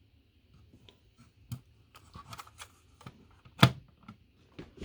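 Handling noise from objects moved about on a desk: light rubbing and scattered small clicks, with one sharper click about three and a half seconds in.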